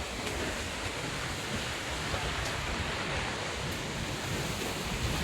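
Rainstorm with very strong wind: a steady rush of wind-driven rain, with the wind buffeting the microphone into a low rumble.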